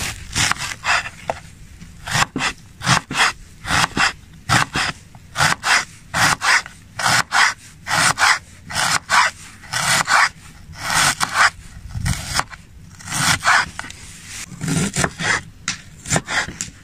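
A large kitchen knife slicing a red onion into rings on a wooden cutting board: a run of crisp cuts, each with a light knock of the blade on the board, about two to three a second with a couple of short pauses.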